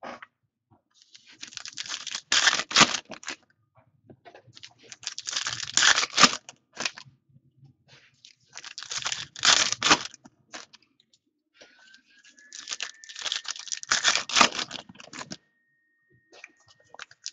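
Foil trading-card pack wrappers being torn open and crinkled in four separate bursts a few seconds apart.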